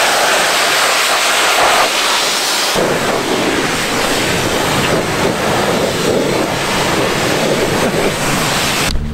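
A pressure washer's jet hisses steadily against a mud-caked enduro motorcycle for a little under three seconds. The sound then changes suddenly into a rougher, deeper rushing noise that carries on steadily.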